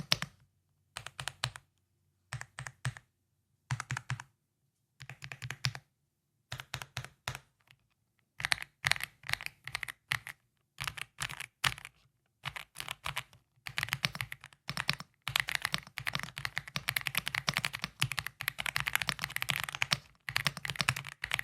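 EPOMAKER x Aula F75 gasket-mounted mechanical keyboard being typed on. At first the keystrokes come in short bursts with pauses between them; from about eight seconds in the typing becomes fast and nearly continuous.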